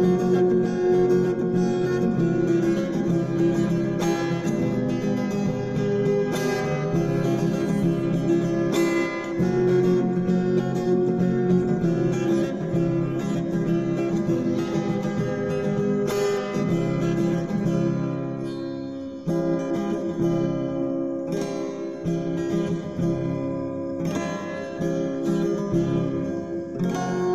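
Background music played on guitar, with steady plucked and strummed chords.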